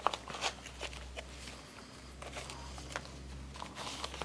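Packaging of a boxed model locomotive being handled: scattered light clicks and rustles of box and inner packing as the model is unpacked, over a low steady hum.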